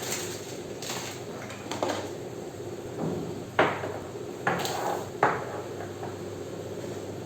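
Kitchen utensils and containers knocking and clattering as they are handled and set into a drawer: a few sharp knocks, the loudest about three and a half seconds in, and a short run of rattling around the five-second mark.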